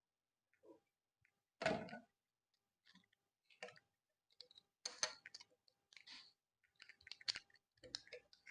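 Scattered faint clicks and handling noises of model-kit parts being fitted and snapped together, with a louder rustle about two seconds in.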